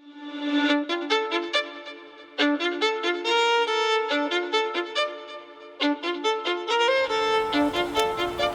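Violin music: a quick run of short notes over a held low note.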